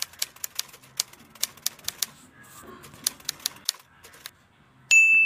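Typewriter sound effect: quick key clicks, about five a second, with a short pause before a few more. Near the end a single carriage-return bell dings and rings on.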